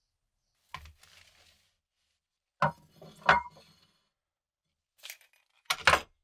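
A few short knocks and clatters of things being handled on a wooden workbench: a plate set down and the steel bayonet picked up. The loudest pair of knocks comes about three seconds in, and another cluster near the end.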